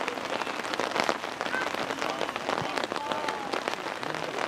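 Rain falling close to the microphone: a steady, dense crackle of small drop impacts, with faint distant shouts from the field.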